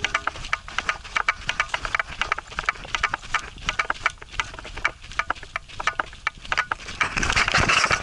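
Footsteps crunching and clicking on loose stones and gravel along a rocky trail, an irregular patter of several steps a second. Near the end comes a louder rubbing rumble as a hand handles the camera.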